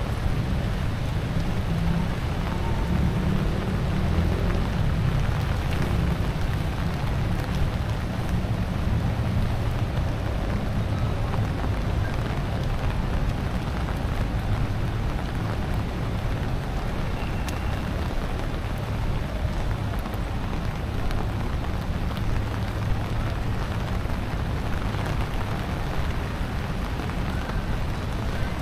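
Steady typhoon rain falling on wet pavement and grass, with scattered tiny drop ticks and a steady low rumble underneath.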